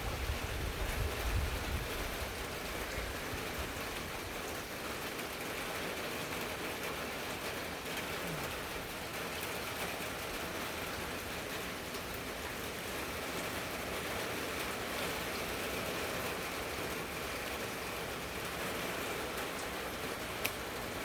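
Steady heavy rain from a hurricane, falling and spattering on surfaces, with gusting wind rumbling on the microphone for the first couple of seconds.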